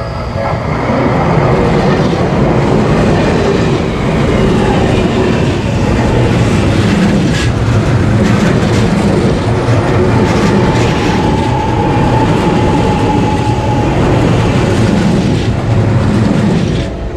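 Train passing at speed, its wheels clattering over the rail joints in a repeating rhythm, with a steady whine for a few seconds midway. The sound builds up within the first second or two and stops abruptly near the end.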